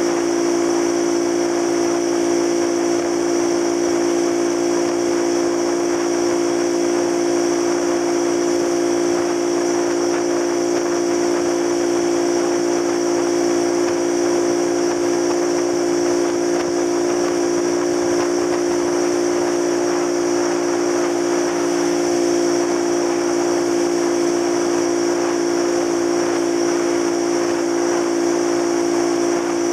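Small motorcycle engine running at a steady cruising speed, heard from the rider's position. It is an even drone that holds one pitch throughout, over a steady hiss.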